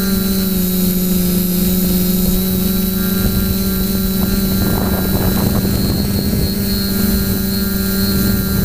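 Quadcopter's electric motors and propellers running in flight, a loud steady hum with a high whine over it, heard up close from the camera carried on the drone.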